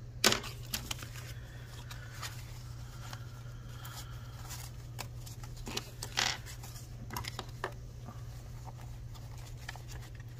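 Paper banknotes picked up and handled: rustles, crinkles and soft taps of bills and a paper envelope against a tabletop, in short scattered bursts. A low steady hum runs underneath.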